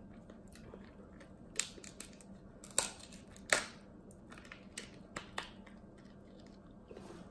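Cooked king crab leg shell being broken apart by hand: several sharp cracks and snaps, the loudest about three and a half seconds in, with lighter ones a little later.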